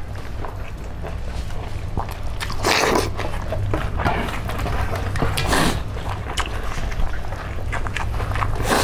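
Close-miked eating by hand: chewing and mouth noises over chicken feet and rice, with steel plates and a spoon clinking and scraping. A few louder scraping rustles come about three seconds in, midway and near the end, over a steady low hum.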